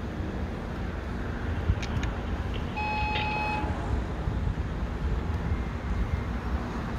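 Steady low outdoor rumble of wind and distant traffic over a hushed crowd, with one short electronic beep lasting under a second about three seconds in.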